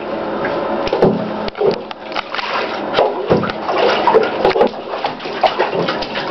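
Baby splashing in shallow bathwater in a tub: a run of irregular sharp slaps and knocks over a steady wash of water noise.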